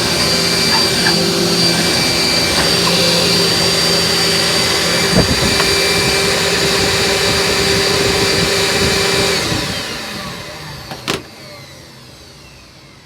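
A vacuum cleaner motor runs steadily with a high whine. About nine seconds in it is switched off and spins down, its pitch falling. A sharp click follows about two seconds later.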